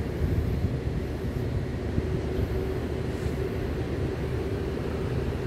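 Freight locomotives standing at idle, the R40 diesel-electric locomotive's engine running steadily as a low rumble with a faint steady hum above it.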